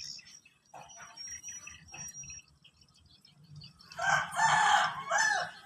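A rooster crowing once, loud for about a second and a half near the end and falling in pitch at its close. Faint clicks and a thin high whistle come before it.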